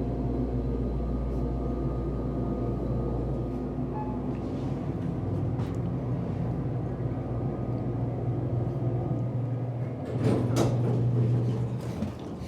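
Elevator running between floors: a steady mechanical hum with a low drone that drops away about nine seconds in as the car stops, then a clatter of the sliding doors opening about a second later.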